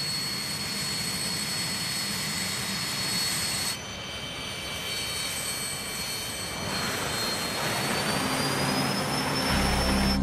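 Jet engines of a private jet in flight: a steady rushing roar with a thin high whine. The sound changes abruptly about four seconds in, the whine rises a little near the end, and music comes in during the last second.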